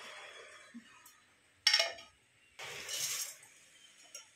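A sharp metallic clink of kitchen utensils, then a short scraping rustle of a steel ladle stirring small dried fish in a wok.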